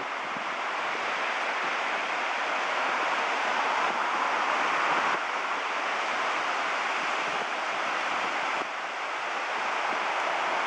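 Ocean surf washing steadily, with a couple of small dips in level partway through.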